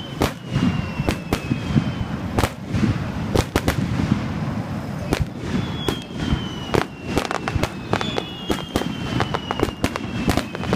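Aerial fireworks bursting in a display: many sharp bangs and crackles in quick, irregular succession, with several thin falling whistles, over a low crowd murmur.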